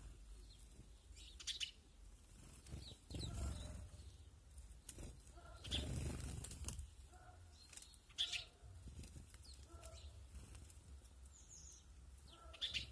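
Sparrows giving short, scattered chirps, with a couple of brief rushes of noise about three and six seconds in.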